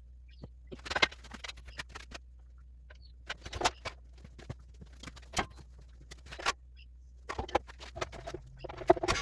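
Scattered clinks and knocks of metal tools and parts being handled on a workshop job, irregular and sharp, over a steady low hum.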